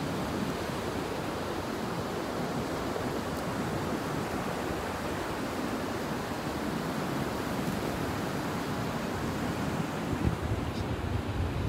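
Ocean surf on a sandy beach: a steady rush of breaking and washing waves. Wind starts buffeting the microphone about ten seconds in.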